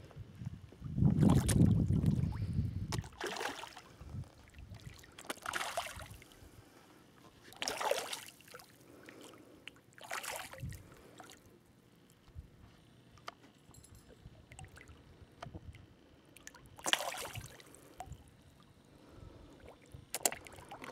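Hardhead sea catfish splashing and slurping at the water's surface as they strike at floating bread. Sharp splashes come every few seconds. A louder, deeper rumble comes about a second in.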